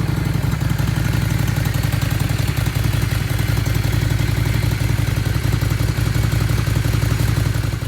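Cruiser motorcycle engine idling steadily, running on its freshly repaired carburetor.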